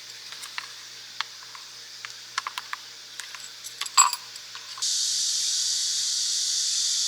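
Light clicks and taps of cooking gear being handled, with one sharp louder clink about 4 s in. A steady high hiss, like a portable gas stove's flame, starts suddenly about 5 s in.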